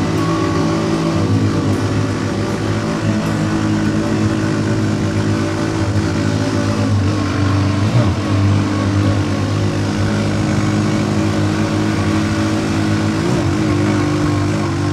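Kingcab SkyGo 150cc tri-wheeler's single-cylinder engine pulling under load up a steep climb, holding a steady pitch, with a brief thump about eight seconds in.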